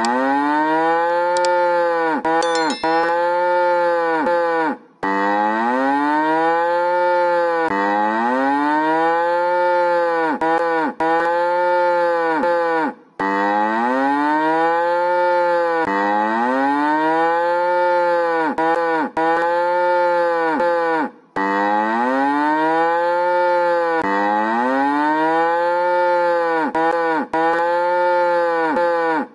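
Cows mooing over and over, a continuous string of calls about one a second, each rising then falling in pitch, with brief breaks every eight seconds or so. A few faint high ding-like tones sound about two seconds in.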